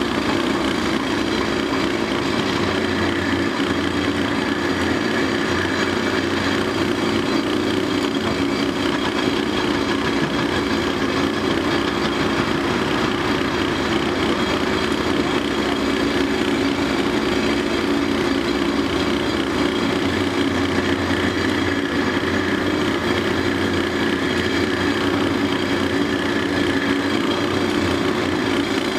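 Caterpillar 385B L excavator's diesel engine running steadily as the machine digs and swings rock, with no clear impacts from the bucket.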